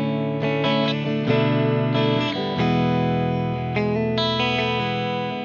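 UMEDA UST QM24 super strat electric guitar played through an amp with its humbucker coil-split, for a thinner, Tele-like single-coil tone. A series of chords is picked and left to ring, with a new chord every half second to a second or so.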